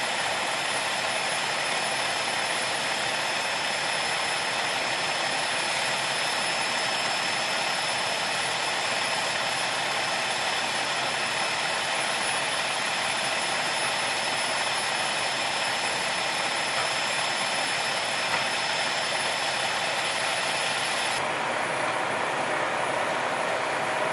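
Steady mechanical roar of fire apparatus running at the scene, with a thin high whine held through it. About three seconds before the end the high hiss drops away and the lower roar carries on.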